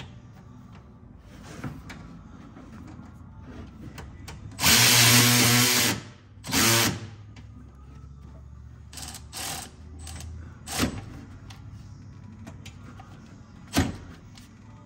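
Cordless power ratchet running in two short spurts, the first about a second and a half long and the second about half a second, driving down the 13 mm bolt that holds the new AC line to the compressor. A few sharp clicks and knocks of tools on metal follow.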